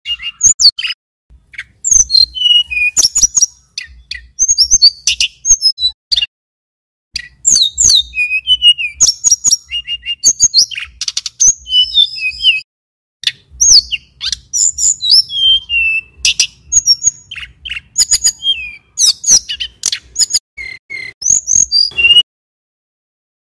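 Male tledekan gunung (sulingan gunung) singing at close range: rapid, varied phrases of high chirps, sliding whistles and trills, broken by brief pauses, stopping shortly before the end.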